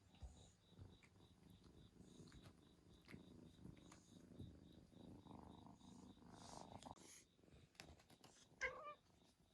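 A cat purring softly, with a short meow near the end.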